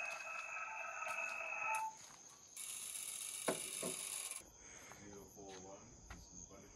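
HF transceiver audio: hiss with steady whistling tones, cut off as by the set's single-sideband receive filter, then a burst of broader hiss. Behind it crickets chirp with a steady high trill, which is left alone after a cut a little past halfway.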